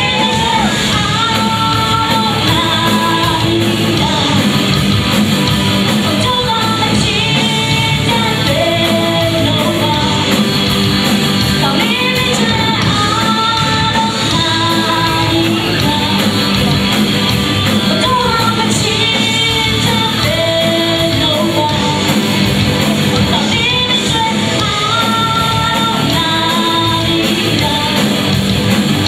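Live rock band playing with a woman singing the lead: electric guitars, bass, keyboard and drums, recorded from the audience in a large hall. The singing comes in repeated melodic phrases over a steady, loud band.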